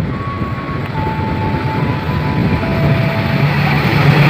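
CC206 diesel-electric locomotive approaching with its train: the engine and wheels on the rails make a rumble that grows steadily louder as it nears.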